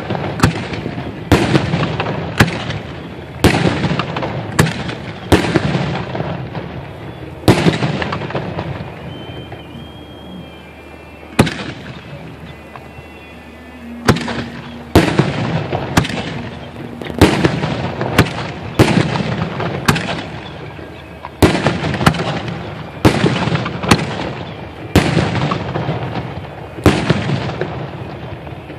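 Aerial fireworks bursting overhead one after another, each a sharp bang trailing off in a long echo, roughly one a second. The bangs thin out for several seconds midway, then come fast again.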